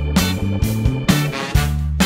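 Upbeat background music with a steady beat, about two beats a second, over a bass line that moves to a new note on each beat.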